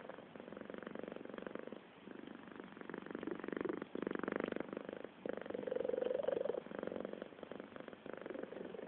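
Siamese cat purring, a rough, tractor-like rumble that swells and dips with each breath, loudest about halfway through.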